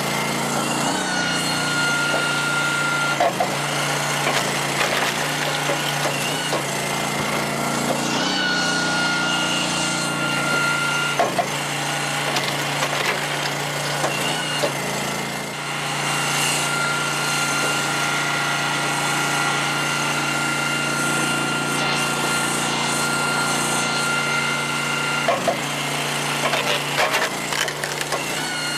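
Engine-driven hydraulic log splitter running steadily, with a high whine coming in three times, longest in the second half, as the 8-way wedge is driven through ash rounds. Sharp cracks and knocks of the wood splitting and split pieces dropping now and then.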